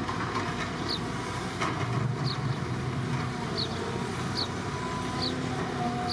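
Heavy construction machinery engine running steadily, with short high chirps repeating about once a second over it.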